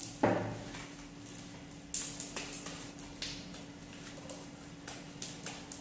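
Homemade slime being handled and pressed by hand: a dull thump just after the start, then a scattered string of sharp sticky clicks and pops.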